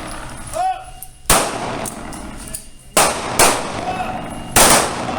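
Pistol shots fired on a shouted command: four in all, about a second in, two about half a second apart near three seconds, and one near the end. Each shot has a short echo trailing after it. A man shouts "Up" just before the first shot.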